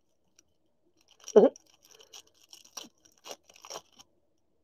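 A foil trading-card pack being torn open and crinkled by hand. One louder, lower rasp comes about a second and a half in, then a few short sharp crackles of the wrapper.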